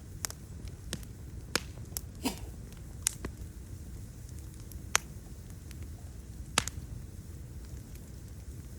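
Wood fire crackling: sharp, irregular pops and snaps, about eight of them, over a low steady rumble.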